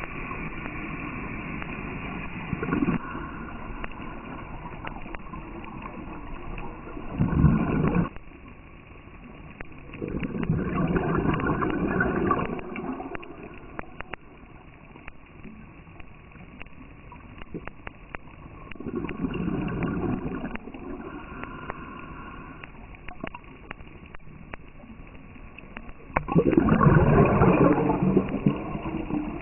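Scuba diver breathing through a regulator underwater, with four rough gurgling bursts of exhaled bubbles several seconds apart. The last burst is the longest and loudest.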